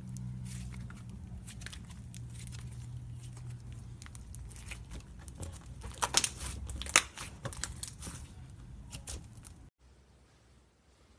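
Slime being squeezed and stretched by hand, giving a run of small sticky crackles and clicks, with a couple of louder pops about six and seven seconds in. The sound cuts off abruptly near the end.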